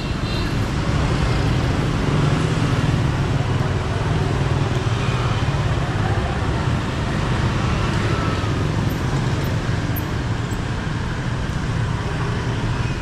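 Steady city street traffic: motorbikes and scooters running past, making a continuous low engine rumble.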